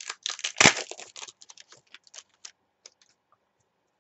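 Trading cards being handled and flicked through in the hands: a quick flurry of card snaps and rustles, loudest about half a second in, thinning to scattered clicks and stopping about three seconds in.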